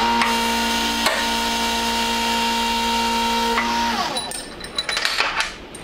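Powered shop press motor running with a steady pitched hum while a bushing driver presses new bushings into MGB rocker arms; the pitch dips briefly about a second in, then the motor winds down around four seconds in. A few light metal clinks follow.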